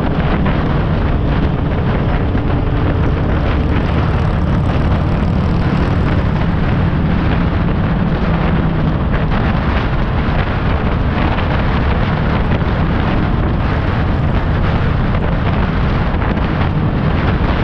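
Motorcycle engine running steadily at road speed under heavy wind rush on the microphone, with tyre and road noise.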